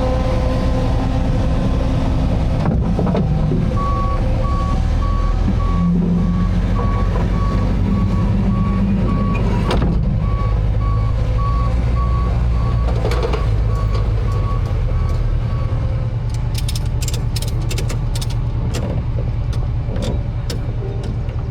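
A vehicle's engine running steadily with its reversing alarm beeping at an even pace for about twelve seconds. A run of sharp clicks and knocks follows near the end.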